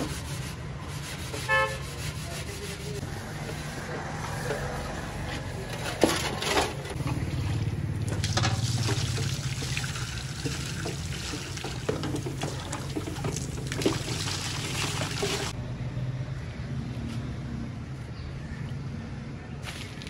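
Water sloshing and splashing as a large steel tray is scrubbed by hand, with a sharp knock of the metal about six seconds in, then water poured from a jug in a steady stream for about seven seconds in the middle. A steady low hum runs underneath.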